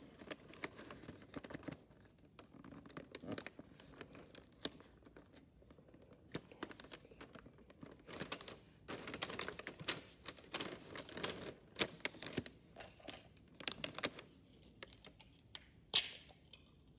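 Wrapping paper crinkling and rustling in irregular bursts, with scattered sharp clicks and a louder snap near the end.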